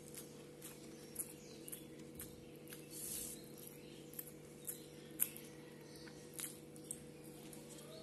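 Close-up eating sounds: irregular sharp, wet clicks of chewing and lip smacks, along with fingers mixing rice on a banana leaf, over a faint steady hum.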